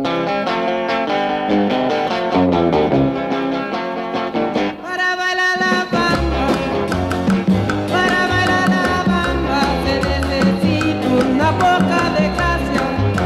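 Background music: a plucked-string melody, joined by a bass line and a steady beat about six seconds in.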